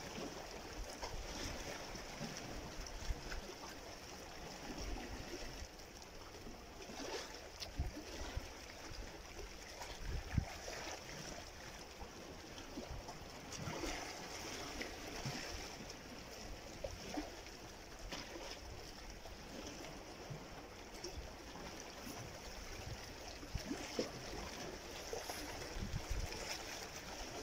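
Small sea waves lapping and splashing against shoreline rocks, an irregular watery sloshing with occasional louder splashes.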